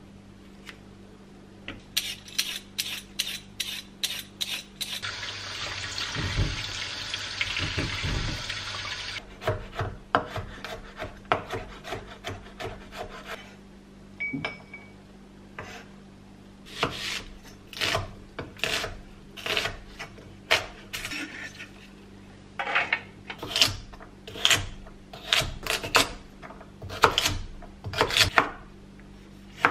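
Kitchen knife chopping vegetables on a bamboo cutting board: garlic being minced, then carrots chopped, as a series of sharp knocks in quick bunches. About five seconds in, a steady rushing noise runs for about four seconds.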